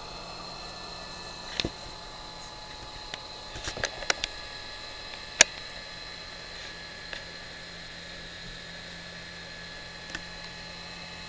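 Blue-diode laser engraver running as it engraves a photo onto a tile: a steady hiss with several unchanging high whines. A scattered few sharp clicks come over it, the loudest about five seconds in.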